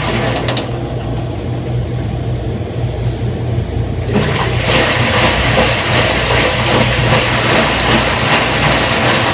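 Front-load washing machine running: a loud, steady rushing noise over a low hum. The higher part of the rushing drops away about half a second in and comes back about four seconds in.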